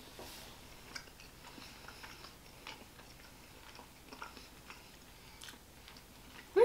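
Two people quietly chewing bites of pork roast, with scattered faint clicks and mouth sounds. A short voiced sound comes right at the end.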